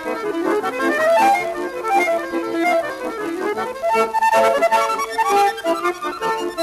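Background instrumental music with a quick, busy melody of rapidly changing notes.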